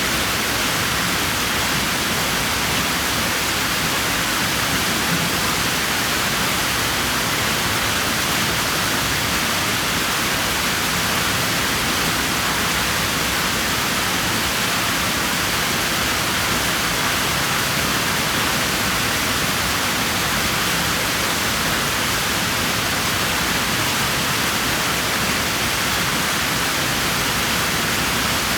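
Swimming pool water rushing steadily, a continuous even wash of falling or churning water with no change throughout.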